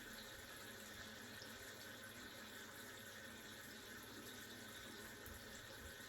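Faint, steady trickle of water draining out of an electric water heater tank through its pressure relief valve and a silicone tube.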